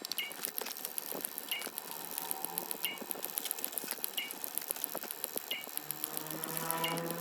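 Sound effect of dense crackling patter, with a short high two-note chirp repeating about every second and a third. Near the end a low hum with rising tones swells in.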